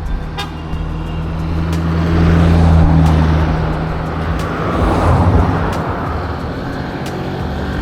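Car engine running steadily with road noise that swells and fades through the middle.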